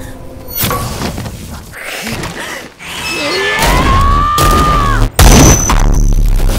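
Animated battle sound effects: whooshes and thuds, then a swelling rumble with a single ringing tone that bends up and down. About five seconds in comes a sudden heavy boom, and a loud low rumble carries on after it.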